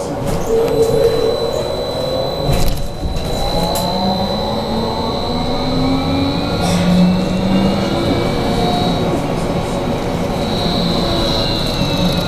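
BKM 43300D trolleybus on the move, heard from inside the cabin: the whine of its electric traction drive glides up and down in pitch as it speeds up and slows, over road rumble and a steady high tone. A few knocks come about two to three seconds in.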